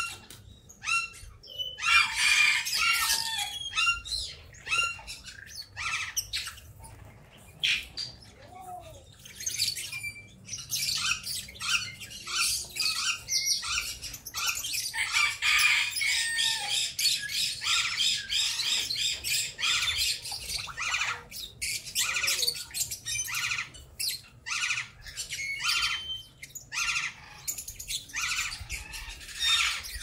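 A flock of small parrots chattering, with a stream of short chirps and squawks. It comes in busy overlapping bursts, then thins to single chirps about a second apart.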